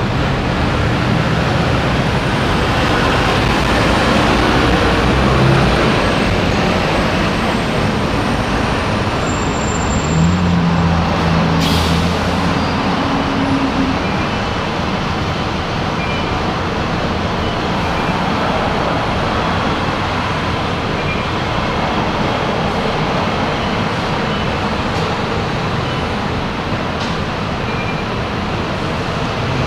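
Road traffic and a double-decker bus at the kerb: a steady wash of traffic noise with a low engine hum that swells for a few seconds around the middle. One short sharp sound stands out about twelve seconds in.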